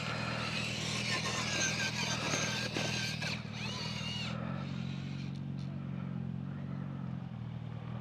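RC rock crawler's electric motor and geared drivetrain whining steadily as it crawls over rocks, with a brief stretch of higher grinding and scraping that dies away about halfway through.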